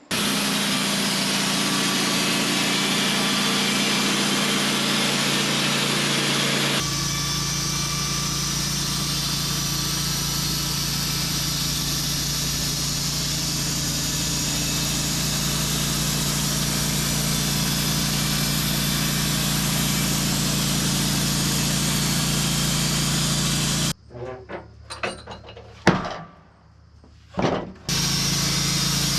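Engine-driven sawmill running and its blade cutting hemlock, edging boards; the sound shifts slightly about seven seconds in. Near the end it drops away for a few seconds to a few knocks and clatter, then the steady running comes back.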